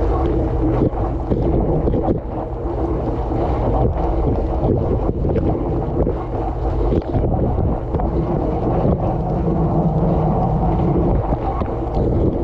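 Dishwasher running its wash, heard from inside the tub: water spraying and splashing against the camera and dishes over the steady hum of the wash pump, with a deep, muffled sound.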